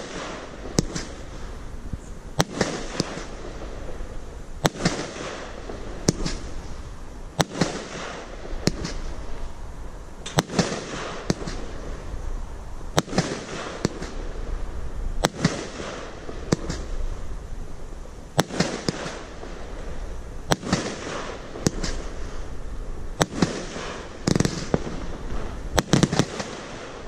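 Firehawk One Minute Riot firework going off: a steady run of sharp bangs, roughly one a second, over a constant hiss. The bangs come closer together near the end.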